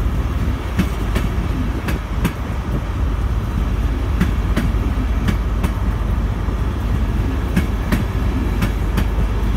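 A train rolling slowly past close by, with a steady low running sound. Its wheels click over rail joints in pairs about half a second apart, a pair every second or so.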